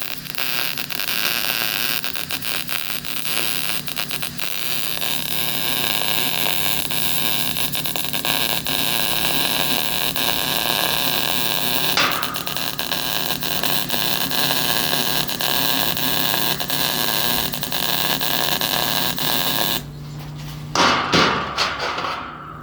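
Wire-feed welding gun arc crackling steadily for about twenty seconds, then cutting off, followed by a few loud knocks near the end. A steady low hum runs underneath.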